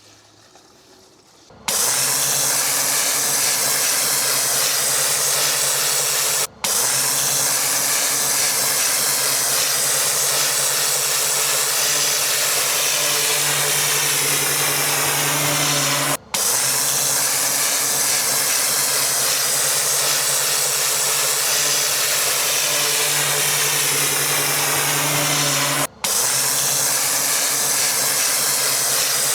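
Pressure washer starting up about a second and a half in, then spraying with a loud steady hiss over a low steady hum from the machine, likely through a turbo (rotary) nozzle. The sound cuts out very briefly three times.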